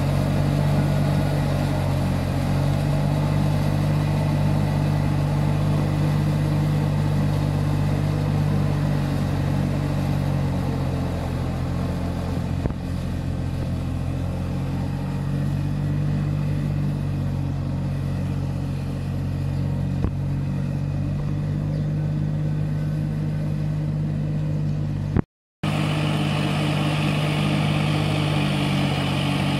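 Farm tractor's diesel engine running steadily under load while working a rotary tiller through a flooded rice paddy, with a brief cut-out near the end before the engine sound resumes.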